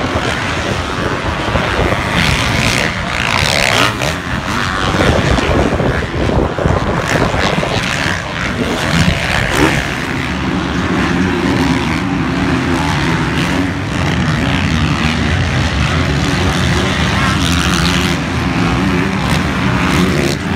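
Motocross dirt bike engines racing around a track, revving and whining as they pass. From about ten seconds in the engine note settles into a steadier drone.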